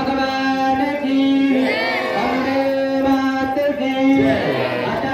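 Hindu devotional chanting, sung by several voices holding long notes one after another.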